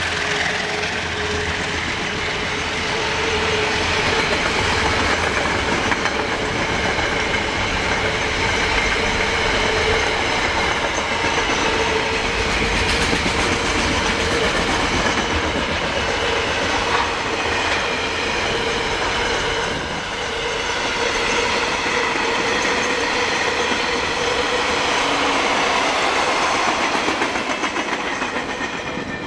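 Freight train of container wagons rolling past at speed: a steady rumble of wheels on rail with clickety-clack and a ringing tone running over it. The sound falls away right at the end as the last wagon goes by.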